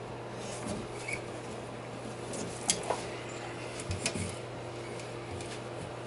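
Handling noise: a few light clicks and knocks, the sharpest about a third of the way in and a pair just past the middle, over a steady low electrical hum and hiss.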